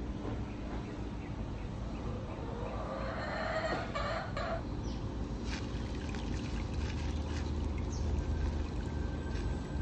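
Chickens clucking, loudest about three to four and a half seconds in, over a low steady hum.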